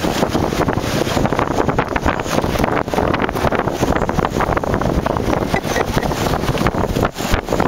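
Strong storm wind from Hurricane Irene buffeting the microphone in rapid gusts, a loud, constant rushing rumble.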